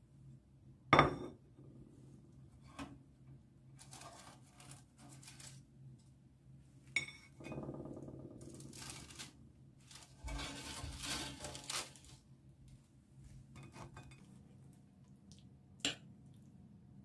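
A frying pan and a countertop toaster oven being handled: a sharp clank about a second in, then scattered knocks and clicks, and two stretches of scraping and rattling as toasted bread is taken out onto the pan. A last sharp clink comes near the end.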